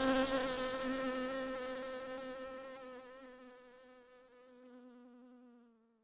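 Honey bees buzzing in one steady, even hum that fades away gradually and is gone shortly before the end.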